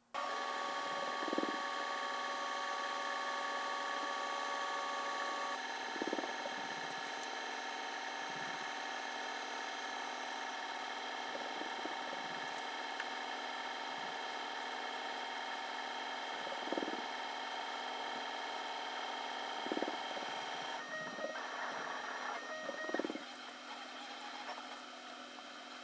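60-watt CO2 laser engraver running a job: a steady machine whir with several steady tones and a short knock every few seconds. Near the end the sound turns rougher and a little quieter.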